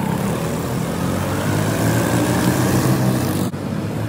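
Go-kart engines running steadily as the karts race around the track, with a brief dropout about three and a half seconds in.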